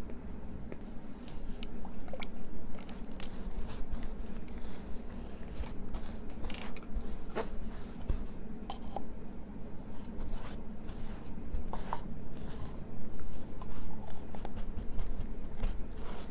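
Close-miked art tools working on a tabletop: irregular scratching with many small, sharp clicks and taps.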